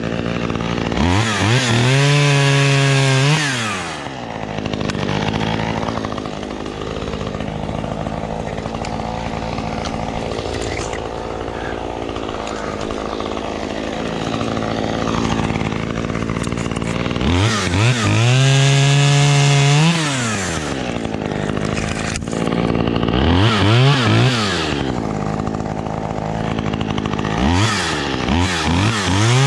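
Husqvarna chainsaw idling, revved up to full speed four times, each for a couple of seconds, dropping back to idle in between.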